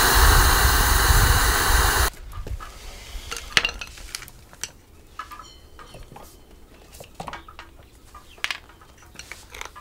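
Compressed-air blow gun hissing loudly as it blasts dust out of the joints of a stone wall, cutting off suddenly about two seconds in. Scattered clicks and light knocks follow as a plastic hand-pump pressure sprayer is handled.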